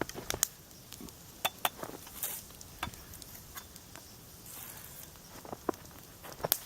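Footsteps through dry leaf litter in the woods, with irregular crunches and sharp snaps of small twigs, a few louder cracks among them.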